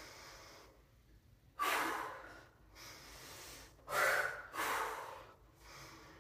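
A woman breathing hard in time with dumbbell overhead presses: forceful exhales about a second and a half in and again about four seconds in, with quieter breaths between, drawn in through the nose.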